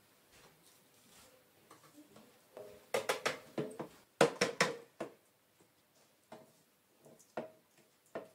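Square metal springform cake pan being lifted, tilted and tapped to spread semolina over its greased sides: a cluster of knocks and rattles about three seconds in, then a few lighter taps.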